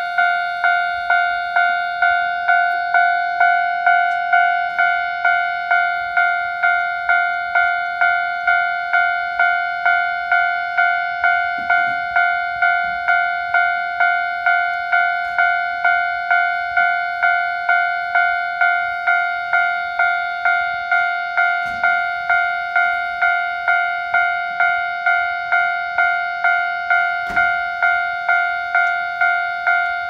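Japanese railway level-crossing warning bell ringing steadily, a clanging tone repeating about twice a second, the signal that a train is approaching the crossing.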